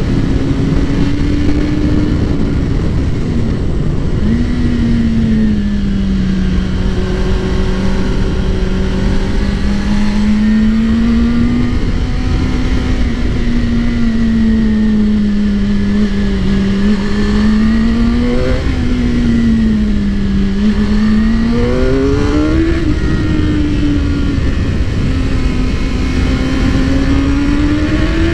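Suzuki GSX-R600 inline-four sportbike engine and exhaust under way. The engine note swells and sags with the throttle and climbs quickly a few times about two-thirds of the way through. A heavy rush of riding wind on the microphone runs underneath.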